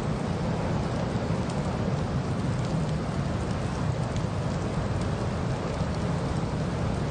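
Steady noise of a car driving through a snowstorm: even, low road and wind noise with faint scattered ticks over it.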